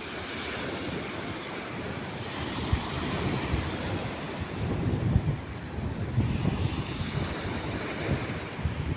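Sea surf washing on the shore, with wind gusting on the microphone, the low rumbles stronger from about halfway in.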